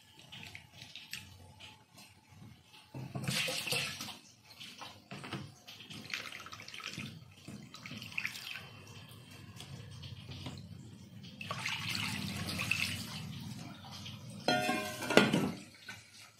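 Warm water poured from a steel pan into a plastic bowl of katla fish steaks in a steel sink, with hands sloshing and rubbing the fish in the water between pours. The pours come about three seconds in and again near twelve seconds, and a brief louder clatter comes near the end.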